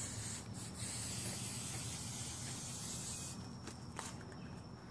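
Aerosol hairspray hissing steadily as it is sprayed into the combustion chamber of a homemade potato gun to charge it with fuel. The spray stops about three seconds in, followed by a couple of light clicks.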